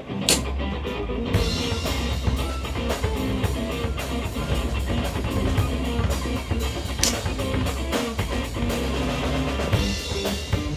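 Background rock music with a drum kit beat, bass and guitar.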